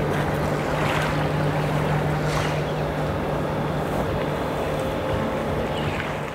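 Shoreline ambience: a steady rush of wind on the microphone over small waves at the water's edge, with a constant low hum underneath.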